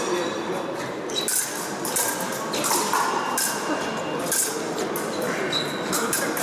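Épée fencing in progress: sharp clicks and clinks of blade contact and footwork, with brief high squeaks of shoes on the piste over a hall's background murmur.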